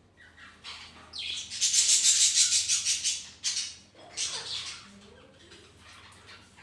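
Pet parakeets giving harsh, raspy calls, loudest from about one to three and a half seconds in, then a shorter burst and fainter chatter.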